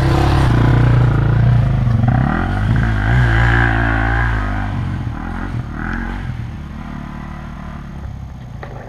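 Dirt bike engines running at trail speed, with the pitch rising and falling as the throttle is worked. The engines are loudest in the first few seconds and then fade steadily toward the end.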